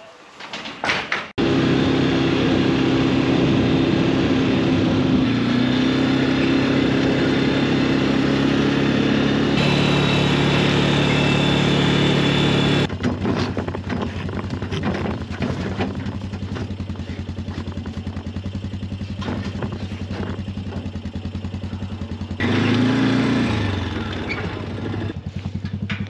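Farm vehicle engine running as it drives, starting abruptly about a second in. Its note shifts suddenly several times, and from about halfway it runs lower and quieter with a steady rapid pulse.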